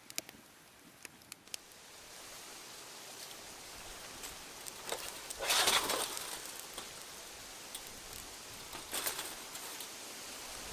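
Wood campfire crackling: a few sharp snaps at first, then a steady hiss that builds, with louder rushing surges about five and a half and nine seconds in.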